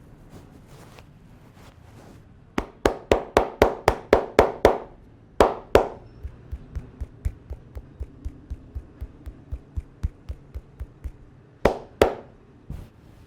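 A barber's hands slapping and tapping rhythmically on the head and neck during an Indian head massage. There is a quick run of about eight sharp slaps, then lighter steady taps at about three a second, and two loud slaps near the end.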